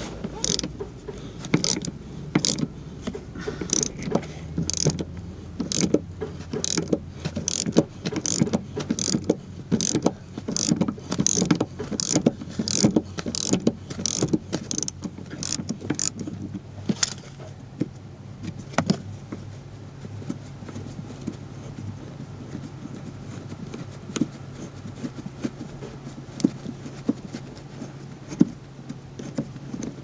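Socket ratchet with a T50 Torx bit clicking as it backs out a seatbelt's lower anchor bolt, in an even run of about two clicks a second. About halfway through the clicks turn fainter and sparse.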